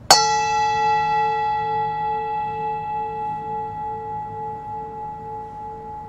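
A singing bowl struck once and left to ring: a single strike at the start, then a long, slowly fading tone with several overtones, its low note pulsing in a slow wobble.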